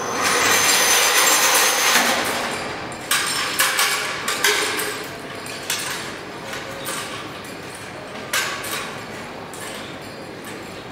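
A rushing noise swells up and holds for about two seconds, then gives way to irregular metallic knocks and clinks from the cable and fittings of a kinetic hanging-lamp installation as the lamp drops down its cable.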